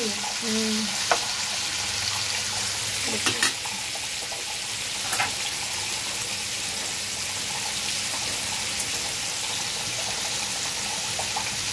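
Chicken pieces frying in oil in a pan: a steady sizzle, with a few sharp clicks of metal tongs against the pan and the wire grill rack.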